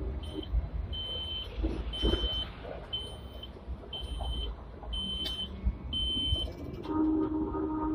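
High electronic beeper sounding in a Hong Kong tram's driver's cab, seven short steady beeps about once a second over the low rumble of the tram creeping along the track. The beeps stop near the end and a lower steady tone starts.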